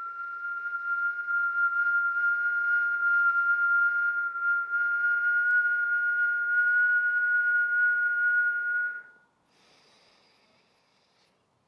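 A woman whistling one long, steady note through pursed lips as she breathes out slowly. The note stops about nine seconds in, followed by a short, faint breath in.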